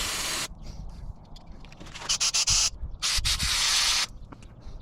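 Aerosol spray can hissing in three short bursts, the first ending about half a second in and the others about two and three seconds in.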